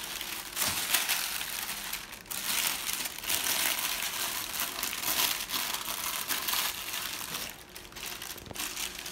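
Wax paper crinkling and rustling unevenly as it is folded and pressed down by hand over soft taffy in a metal roasting pan.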